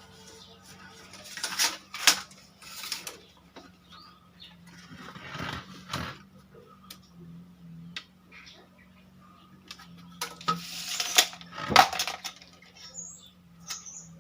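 Wooden boards being handled: several separate knocks and scrapes of wood on wood over a faint steady hum.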